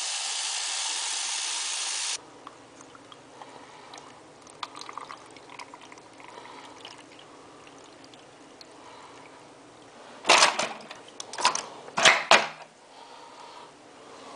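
Kitchen faucet running into a plastic cup, cutting off sharply about two seconds in. Then quiet handling, with a few loud knocks and clatters about ten to twelve seconds in.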